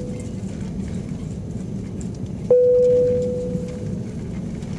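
Airliner cabin noise while taxiing: a steady low rumble. Over it, a single clear ringing tone starts sharply about two and a half seconds in and fades out over about a second and a half.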